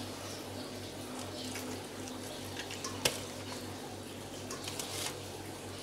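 Soft wet squishing and small ticks of bread stuffing being pressed by hand into a plucked quail over a stainless steel bowl, with a sharp click about three seconds in. A steady low hum runs underneath.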